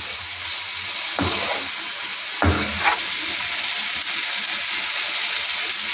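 Mutton heart pieces in masala sizzling in a non-stick frying pan as they are stirred with a metal slotted spoon. The spoon knocks against the pan twice, about one and two and a half seconds in.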